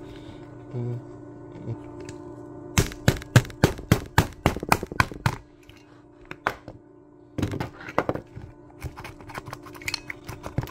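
Rapid series of sharp clicks and knocks, about five or six a second for some two and a half seconds, then a few more scattered clicks, from hand tools working on an ice machine's water pump motor during disassembly. A faint steady hum lies underneath.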